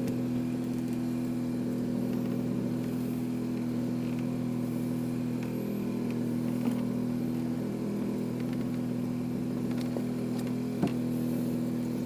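An engine aboard a fishing boat running at a steady idle, a constant low hum, with a sharp knock shortly before the end.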